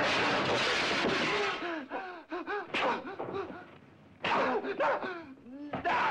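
Men struggling in a fight: gasps and short rising-and-falling cries over loud bursts of rushing noise. The loudest burst is at the start and another comes about four seconds in.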